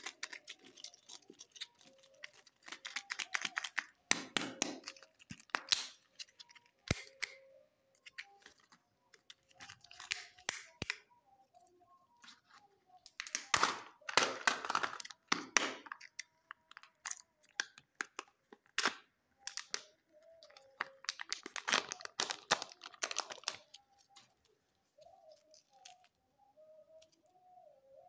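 Plastic chocolate egg being handled and opened: crinkling and tearing of its plastic wrapper and foil seal, in several spells of rustling and clicks with short pauses between.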